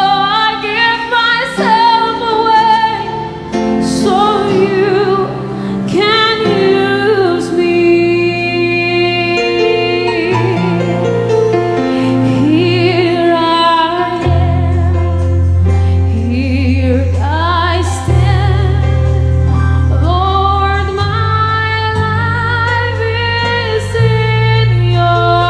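A woman singing a slow Christian worship song into a handheld microphone, over instrumental accompaniment with sustained bass notes. Her long held notes waver with vibrato.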